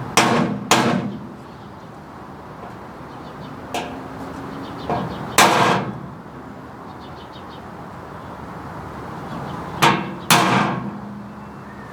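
Hammer striking a center punch on steel bracket stock, marking holes to be drilled: three pairs of sharp, ringing metallic clangs, each pair about half a second apart.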